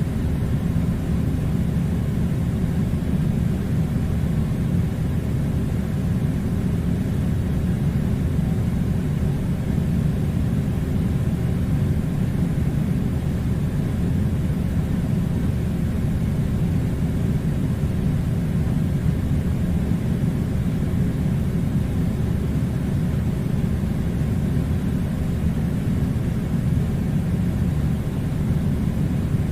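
Air conditioner running with a steady low rumbling hum and a faint hiss, unchanging throughout.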